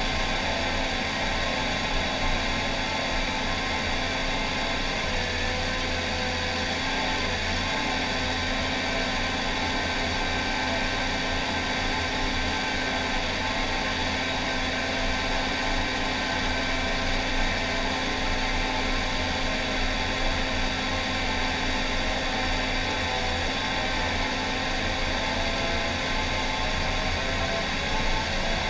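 John Deere 750K crawler dozer's six-cylinder diesel engine running steadily under load as the blade pushes dirt, heard from inside the cab.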